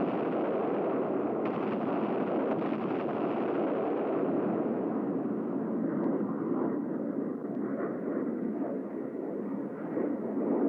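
Steady rushing noise of an F-111 jet's engines, with no sharp bangs, growing a little duller after a few seconds.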